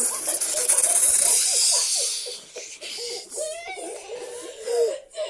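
Children laughing hard in high-pitched, repeated bursts, with a loud, breathy hiss in the first couple of seconds.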